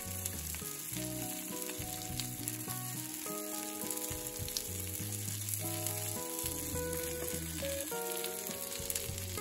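Breaded cutlets sizzling steadily as they fry in shallow oil in a nonstick pan.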